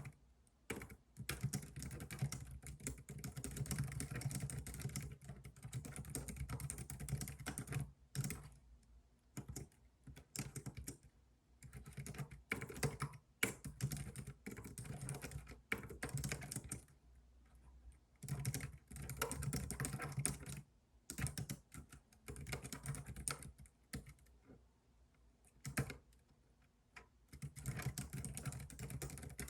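Typing on a computer keyboard in runs of rapid keystrokes lasting a few seconds each, broken by short pauses.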